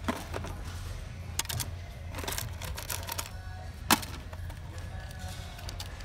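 Small metal fishing tackle (swivels, spoons, lures) clicking and rattling against the plastic compartments of a tackle box as a hand sorts through it, with a sharper clack about four seconds in. A steady low hum sits underneath.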